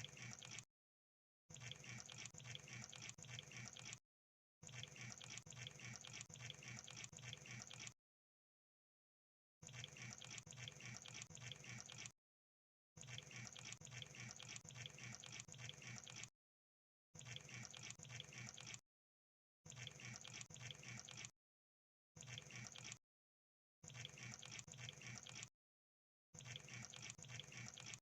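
Quiet crab sound effect: rapid fine clicking and crackling in repeated bursts of one to three seconds, about ten of them, each cut off into dead silence.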